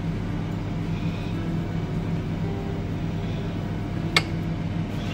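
Steady low machine hum, with a single sharp click about four seconds in.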